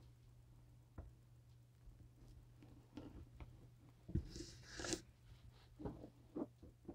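Faint handling noise of skirt fabric on a dress form: a soft rustle of cloth about four seconds in, and a few light knocks and taps scattered through, over a steady low hum.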